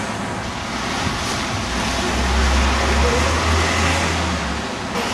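Street traffic on a wet road: a steady hiss of tyres on wet tarmac, with a low rumble swelling from about one and a half seconds in and fading just before the sound changes near the end.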